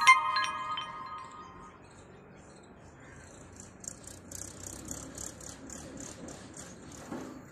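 A bright chime strikes at the start, several clear tones ringing together and fading over about a second and a half. From about halfway through, faint very high chirps repeat about three times a second.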